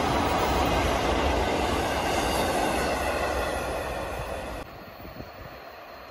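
Freight train of ore hopper cars rolling past, a steady rumble of steel wheels on the rails that fades a little and then drops off sharply about four and a half seconds in, leaving only a faint rumble.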